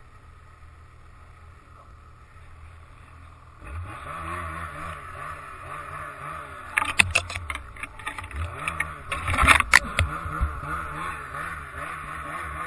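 Snowmobile engine running low at first, then from about four seconds in revving up and down repeatedly under load in deep snow. Several sharp knocks and snaps come in the middle.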